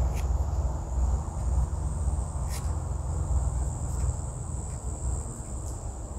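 Steady high-pitched drone of insects over a low rumble, with a few faint scrapes as a knife splits open a homemade mosquito coil.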